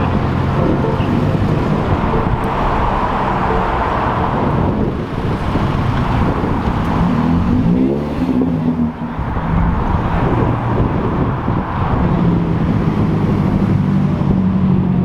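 Car engine running steadily under way, with road noise. Its pitch rises and falls about halfway through, then settles again.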